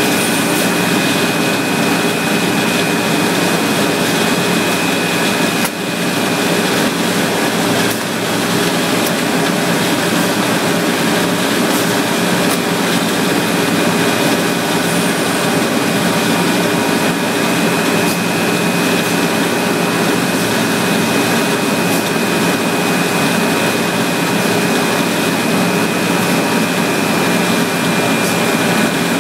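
Steady loud industrial machinery drone with a steady high whine running through it, from a plastic-film roll guillotine and the factory machinery around it. The noise dips briefly twice, about six and eight seconds in.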